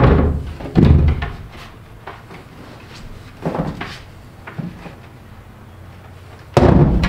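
Several separate knocks and thumps on the box truck's fiberglass-and-plywood wall as the cut panel is worked loose. A loud steady noise starts about a second before the end.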